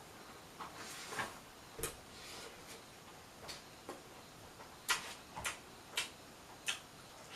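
Close-miked eating sounds: chewing and wet mouth clicks, a string of short, sharp, irregular smacks as the food is eaten.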